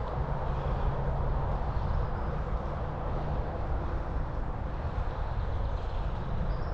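Steady wind buffeting the microphone of a camera on a moving bicycle, a low ragged rumble with an even rush of air over it.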